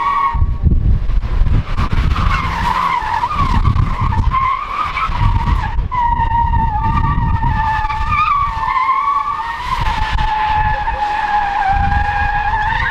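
A sedan doing donuts, its tyres screeching in a long, wavering squeal over the engine's low rumble. The squeal breaks off briefly about six seconds in, then picks up again.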